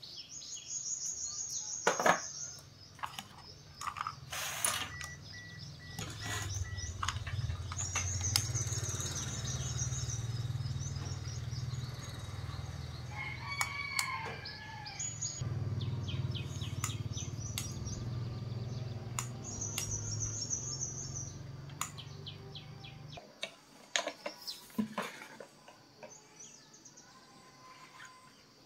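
Transformer soldering gun humming low and steady while a joint is soldered, cutting off sharply about two-thirds of the way through. A few sharp clicks come about two and five seconds in, and birds chirp and trill in the background.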